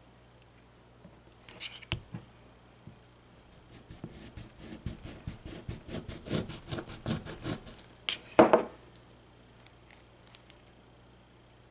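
Kitchen knife sawing through a whole lemon, a quick run of short crisp cutting strokes for a few seconds, then one louder brief sound as the blade comes through.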